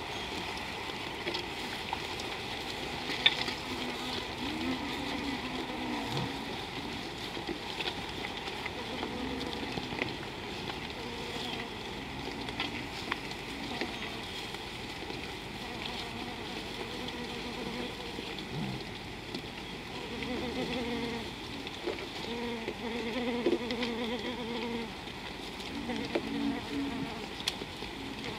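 Flies buzzing close to the microphone, the wavering hum coming and going in several passes, most of all in the second half.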